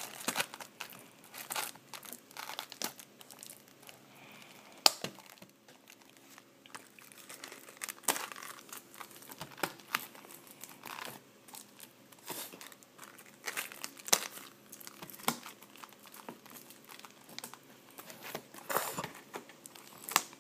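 Plastic wrap crinkling and a cardboard trading-card box being torn and pried open by hand, with irregular crackles and sharp snaps, the loudest about five seconds in; the box is stubborn to open.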